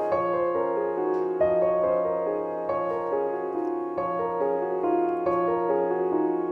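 Background piano music, sustained notes with a new note or chord about every second.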